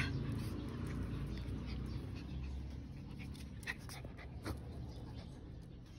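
Small long-haired dog panting, fairly faint, with a couple of light clicks near the middle.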